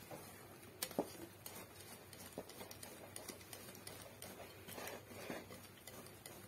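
Spoon stirring thick cake batter in a glass bowl: faint scraping with a few soft clicks of the spoon against the glass, the sharpest about a second in.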